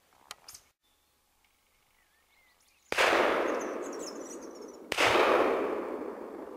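Two shotgun shots about two seconds apart, fired at a woodcock flying over at dusk. Each shot cracks suddenly and rolls away slowly for a couple of seconds.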